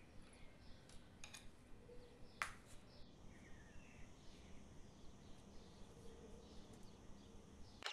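Faint outdoor ambience: small birds chirping in short calls over a low steady hiss, with a sharp click about two and a half seconds in. The sound cuts off abruptly at the very end.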